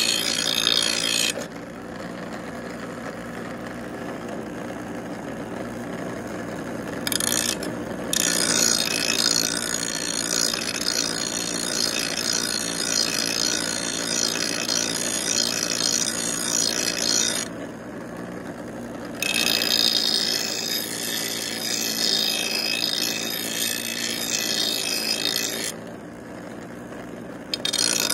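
Bench grinder running steadily while a steel lawn mower blade is pressed against the spinning wheel to sharpen its cutting edge, giving a harsh, high grinding over the motor's hum. The grinding stops three times, for about five seconds near the start and for a second or two twice later, leaving only the grinder's hum.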